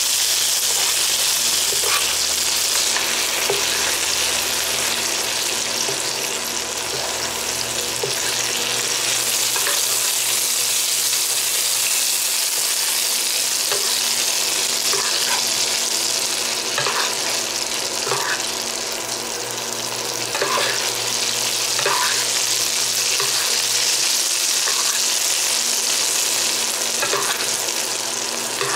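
Pork chops and chopped garlic sizzling steadily in hot fat in a frying pan, with scattered light clicks of a metal spoon against the pan.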